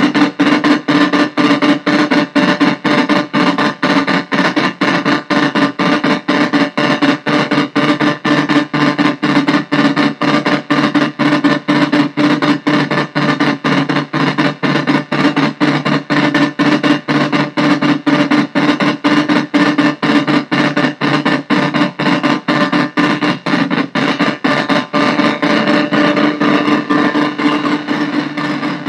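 Arturia MicroBrute analog synthesizer cross-patched with a Casper Electronics Nova Drone, played through a bass practice amp: a loud, harsh noise drone over a steady low tone, chopped by fast, even pulsing.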